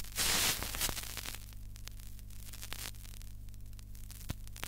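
Vinyl record surface noise before the music starts: a burst of hiss in the first half second, then a steady low hum with scattered crackles and pops from the stylus in the groove.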